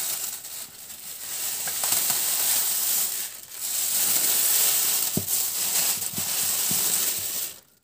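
Thin plastic carrier bag crinkling and rustling as it is handled and pulled off a bowl, dipping briefly about three and a half seconds in and stopping just before the end.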